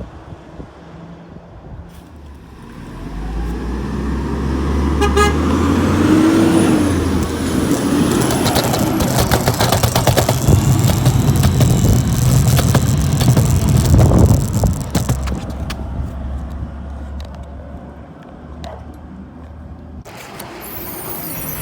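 Garbage truck driving past: its engine noise builds, is loudest around the middle, then fades. A brief horn toot sounds as it approaches.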